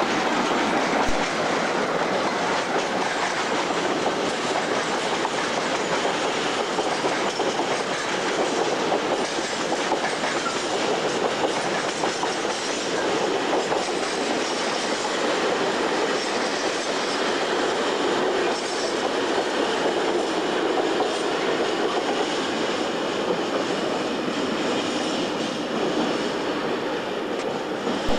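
Freight train passing on the main line, its wagons rolling by with a steady, continuous noise of steel wheels on rail.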